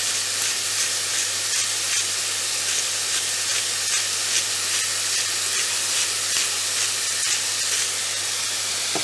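Chopped onions sizzling in oil in a stainless steel frying pan: a steady hiss with many small crackles, the onions starting to fry with their spices.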